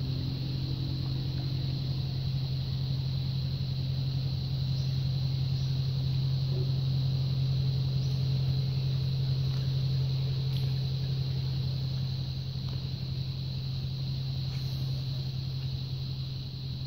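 A small engine drones at a steady, even speed, with a faint steady high-pitched tone running above it.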